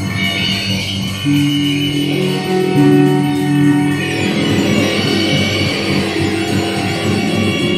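Improvised experimental band music: electric guitar and bass hold sustained low notes over electronic loops and textures, the held notes dropping away about four seconds in.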